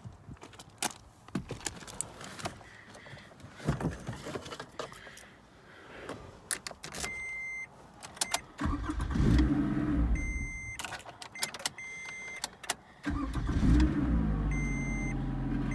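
Clicks and handling noises, then a car's warning chime beeping about once a second. The 2015 Scion tC's 2.5-litre four-cylinder is cranked by its newly fitted used starter: a short burst about nine seconds in, then about thirteen seconds in it catches and settles into a steady idle.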